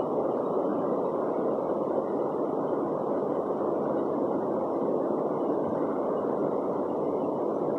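Steady, dull rushing noise at an even level, with no distinct events.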